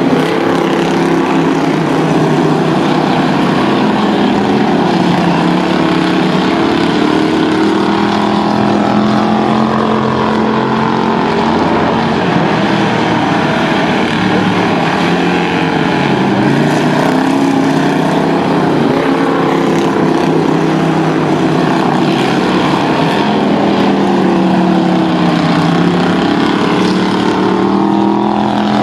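Strictly Stock dirt-track race cars' engines running at race speed, several at once, their pitch rising and falling as they work through the turns and pass by.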